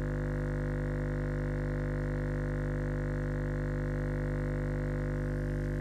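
JL Audio 10W7 subwoofer, driven by a JL 500/1 amplifier, playing a steady 50 Hz sine-wave test tone: a constant low hum that does not change.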